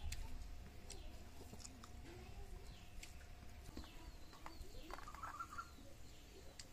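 Soft chewing and eating by hand, with small scattered clicks, while birds call in the background, a warbling call about five seconds in.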